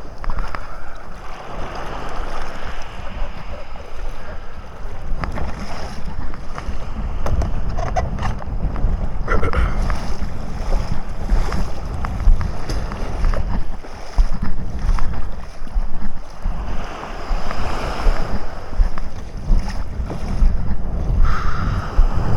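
Rough, storm-driven sea waves sloshing and breaking, with strong wind buffeting the microphone in a heavy, uneven rumble.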